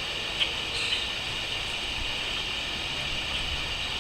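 Crickets chirping in a continuous high-pitched chorus that sounds like a steady hiss, with a couple of short bird chirps about half a second and a second in.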